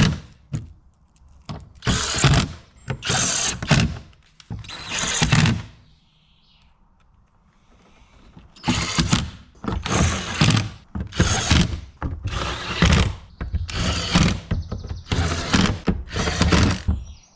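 A socket tool working the door handle and lock fasteners in short repeated bursts. A few irregular bursts come first, then a pause, then a steady run of bursts at about one and a half a second.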